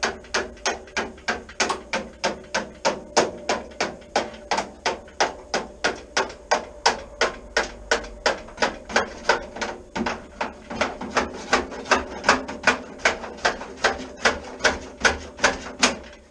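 Hammer driving a chisel into the ground-back seam of a steel Classic Mini door skin, splitting the skin from the door frame. A steady run of about three sharp metallic taps a second, each with a short ring, stopping just before the end.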